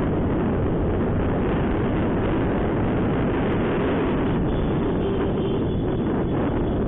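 Steady wind rush on the microphone of a Honda SP125 motorcycle riding at about 50–65 km/h, with the bike's engine and road noise underneath.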